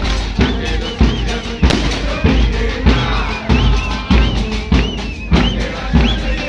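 Football supporters' band of big bass drums (bombos) pounding a steady beat, a little under two strokes a second, with high wavering melodic tones over it.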